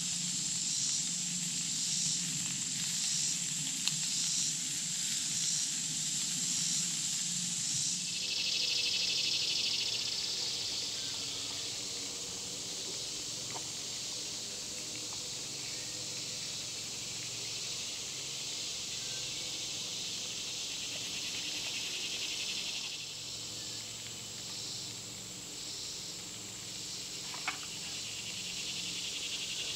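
Insects calling in the woods: a pulsing high chorus that gives way to a fast, steady high trill about eight seconds in, then pulsing again near the end. Under it runs a steady hiss from food frying in a pan over a small wood stove.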